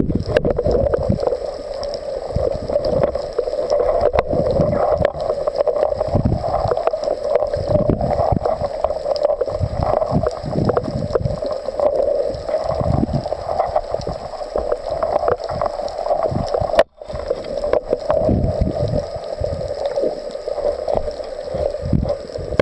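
Muffled underwater noise picked up through a waterproof camera housing: water movement with irregular low thumps and knocks as the camera and spear gear are handled, over a steady hum. The sound drops out for a moment about three-quarters of the way through.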